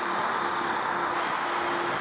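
Jet airliner engines heard from a distance, running steadily at low power: an even rush with a thin high whine held on one pitch.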